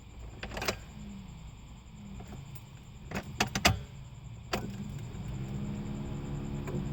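A car's engine running with a low rumble, broken by a few sharp clicks, most of them in the middle. About five seconds in, it settles into a steadier hum with a pitched note.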